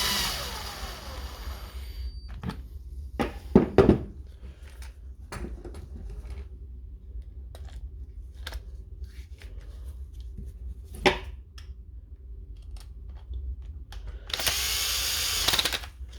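A small electric motor runs in two short bursts, one at the start that winds down over about two seconds and one near the end. Between them come scattered clicks and knocks of the shears' plastic parts being handled and fitted back together.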